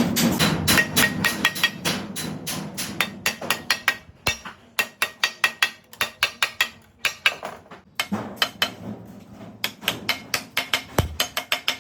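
Repeated hammer blows, about three strikes a second, in runs broken by a short pause about seven seconds in.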